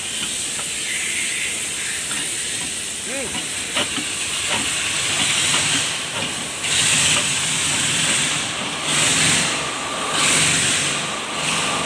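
A steady hiss that swells into several louder surges from a little past the middle, with a few faint clicks in the first half.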